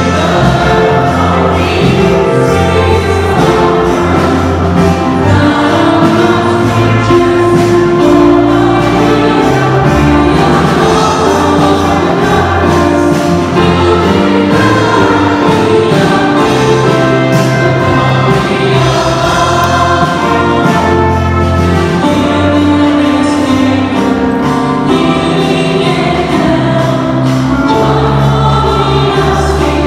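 A choir sings a hymn with instrumental accompaniment, sustained bass notes running underneath the voices.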